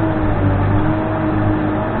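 Case 580N backhoe loader's diesel engine running steadily under working load, with a steady whine that wavers slightly in pitch.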